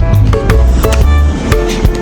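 Upbeat background music with a steady beat: a bass line, percussion hits and bright melodic notes.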